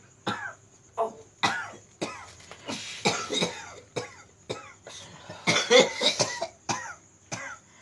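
A man coughing over and over in harsh, separate coughs, about one or two a second, with the loudest run a little past the middle: the chronic cough he has had for more than two years.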